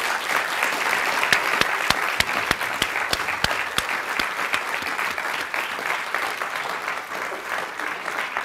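Audience applauding, a dense patter of many hands with sharp individual claps standing out, easing off a little toward the end.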